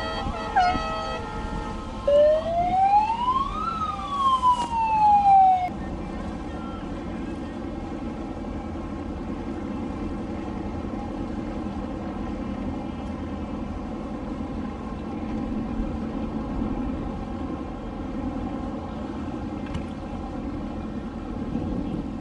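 Horns sounding briefly at the start, then a siren that rises and falls once, the loudest sound. After that, a steady low drone of boat motors on the water.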